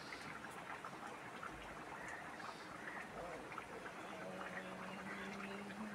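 Faint steady hiss of a lit gas stove burner with light clinks of a steel ladle against a steel pot and bowl as curry is scooped out. A faint held low hum joins about four seconds in.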